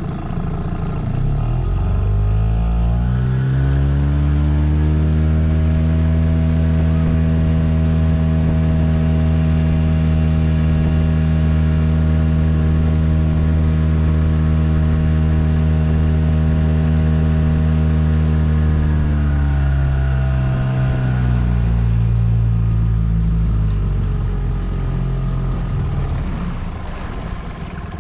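Nissan Marine 5 (Tohatsu M5) two-stroke outboard motor running: its pitch rises as it is throttled up over the first few seconds, holds steady at speed, then falls back towards idle from about two-thirds of the way through.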